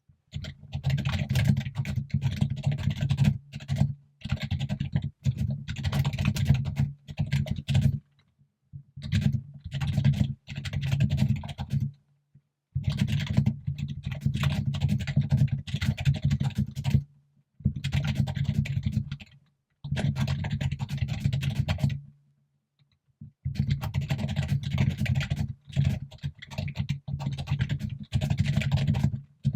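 Fast typing on a computer keyboard in bursts of several seconds, with short pauses between them.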